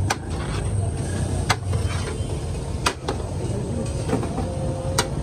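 A metal serving spoon clinks sharply against a large aluminium rice pot four times, about every one and a half seconds, over a steady rumble of street traffic.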